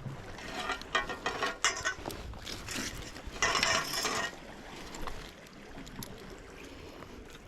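Fishing tackle clicking and rattling, typical of a spinning reel being handled or wound: irregular clicks, with a brief rush of noise about three and a half seconds in.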